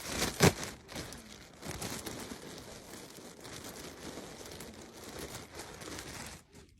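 Packaging crinkling and rustling as it is handled and pulled open, with a sharp loud crackle about half a second in, stopping abruptly near the end.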